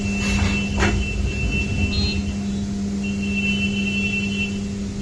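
Tyre-changing machine's electric motor running steadily with a low hum, turning the wheel while the new tyre's bead is worked onto the rim. An intermittent high squeak and a sharp knock about a second in come with it.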